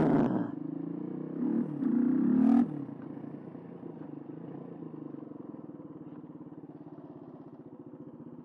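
Suzuki DR125's single-cylinder four-stroke engine running at low speed, with a brief louder rev about two seconds in, then settling to a steady low running.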